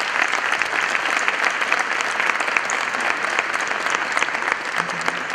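Conference audience applauding a speaker at the end of her talk: steady, dense clapping from many hands.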